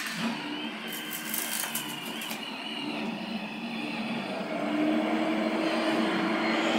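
iRobot Roomba 705 robot vacuum running, its motor hum getting louder about halfway through, with a short spell of rapid clicking near the start.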